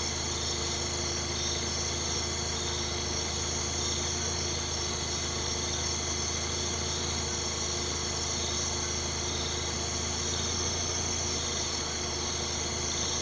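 A vehicle engine idling steadily, with a constant high chorus of night insects over it.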